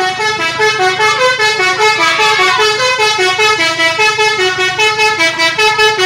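Bus telolet horn, a multi-note musical air horn, playing a fast, jumpy tune of short notes that step up and down about five times a second.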